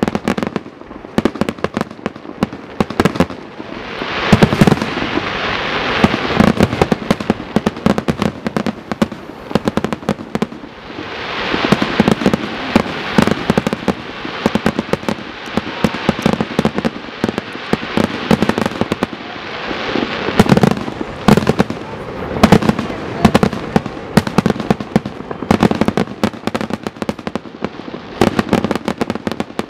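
Fireworks finale barrage: a rapid, unbroken run of shell bursts and bangs with crackling, thickening into dense crackle and hiss twice, about four seconds in and again around twelve seconds.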